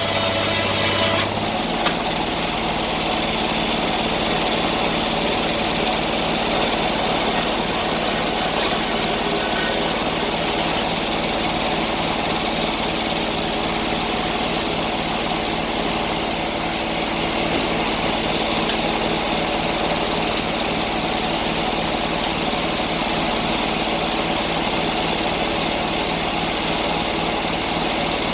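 Sawmill engine running steadily, with a regular low pulse; about a second in, its sound changes abruptly and then holds even.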